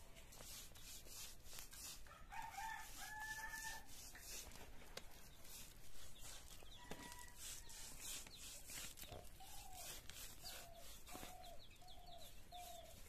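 Chickens in the background: a rooster's crow about two seconds in, then a run of short clucks, about two a second, through the last few seconds.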